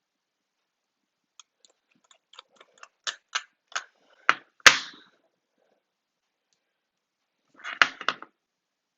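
Small sharp clicks and taps of a phone and precision repair tools being handled on a work mat: a run of light clicks growing louder, two harder knocks about four and a half seconds in, then a quick cluster of clicks near the end.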